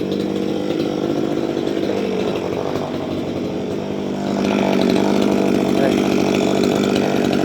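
Small engine running steadily at a constant pitch, getting louder and harsher about four and a half seconds in.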